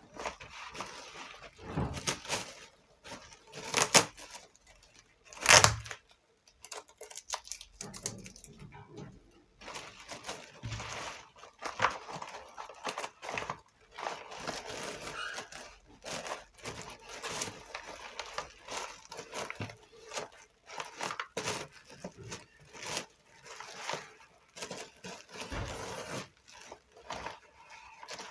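Corrugated paper and cardboard packing material being handled: irregular rustling and crinkling with scattered sharp knocks, the loudest about four and five and a half seconds in.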